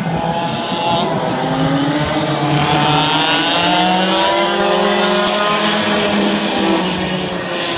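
Racing karts' engines passing at speed, a buzzing engine note whose pitch glides up and down, swelling to loudest in the middle as two karts go by and easing off near the end.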